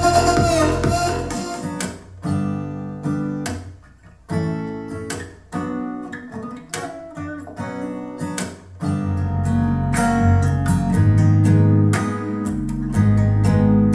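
Recorded music: an electronic track fades out in the first two seconds, then a strummed acoustic guitar piece takes over, with a deep bass line coming in about nine seconds in.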